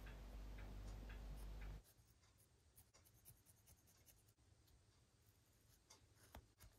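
Faint scratching and a few light ticks of a craft knife trimming excess gasket from the edge of an engine's clutch cover, very quiet overall; a low hum underneath stops a little under two seconds in.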